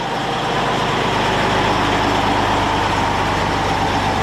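Antonov An-225's jet engines running steadily: a constant high whine over a low hum, as an engine run on the ground.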